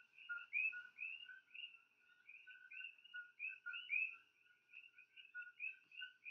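Faint chorus of coqui frogs: short two-note chirps, a lower note and a higher curved one, repeated two or three times a second without a break.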